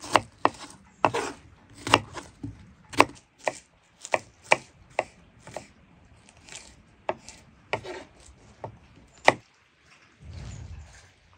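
Knife chopping food on a cutting board: sharp strokes about two a second, spacing out and stopping about nine seconds in. A brief low rumble follows near the end.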